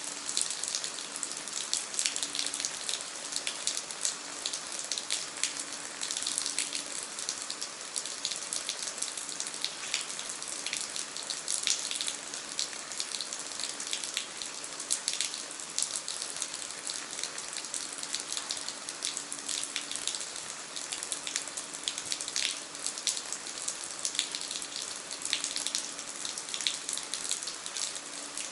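Steady heavy rain: a dense, even hiss with many individual drops striking sharply through it. A faint low hum comes and goes underneath.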